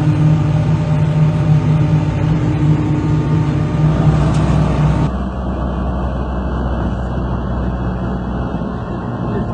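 Heavy machinery engine running steadily; about five seconds in, the sound cuts to a different recording with a lower engine rumble.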